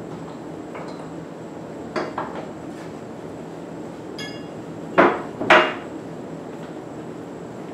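Metal-on-metal clanks around a steel motorcycle lift as its ratchet tie-down straps are unhooked. A couple of light knocks come about two seconds in and a brief metallic ring a little later, then two loud clanks half a second apart.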